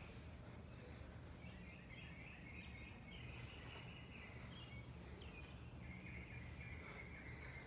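Quiet background: a low steady hum with faint high bird chirping. No clear clank from the barbell stands out.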